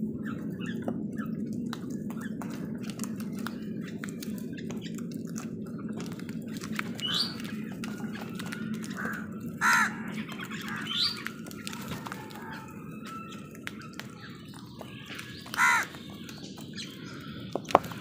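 House crows cawing: a few fainter calls, then two loud, harsh caws about ten and sixteen seconds in, over a steady low hum and scattered light clicks.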